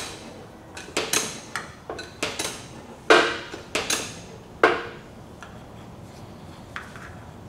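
Sharp metallic clinks and clanks, about a dozen in the first five seconds and then only a faint tick or two, from the gear-oil pump hose and fill plug being handled at a rear differential's fill hole as the axle is topped up with gear oil.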